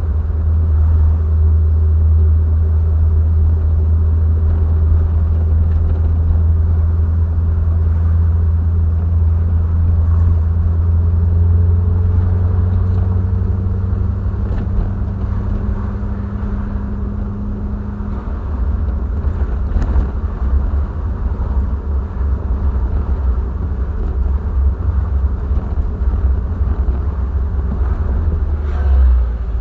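Triumph TR7's 4.6-litre V8 engine running under way, a steady low drone. The engine note climbs slowly, then falls back about two-thirds of the way through, with a brief louder surge near the end.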